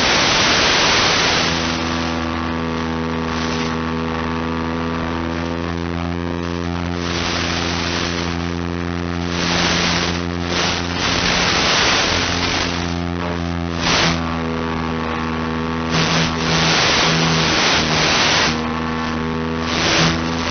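Steady buzzing hum of an FPV model plane's electric motor and propeller, heard through the onboard camera's microphone over the analog video link. Bursts of radio static hiss come and go every second or two as the link breaks up.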